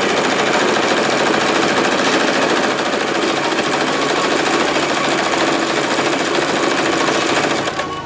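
Janome 2222 portable sewing machine stitching at a steady, fast pace, its needle running continuously, then stopping near the end.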